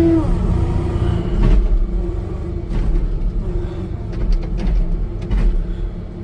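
Hitachi ZW50 compact wheel loader's diesel engine running steadily with a low rumble and a constant whine, with a few sharp knocks in the second half.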